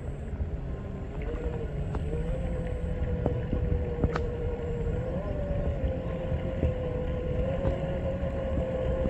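A scale RC model boat's motor running with a steady whine that grows louder as the boat approaches, its pitch stepping up slightly twice, over a low rumble.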